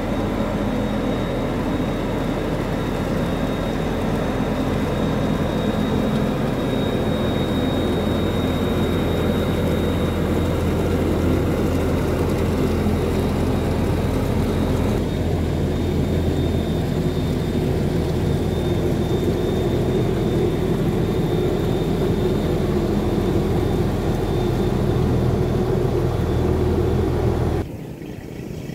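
A sand boat's engine running steadily under way, a constant low drone with a thin steady whine above it. It drops off abruptly near the end.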